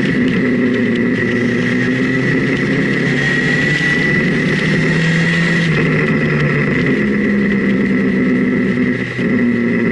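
Sport motorcycle engine running under way on a winding road, heard from on the bike, with wind rushing past and a steady high whine. The engine note drops about five seconds in and rises again near seven seconds, with a brief dip in level about nine seconds in.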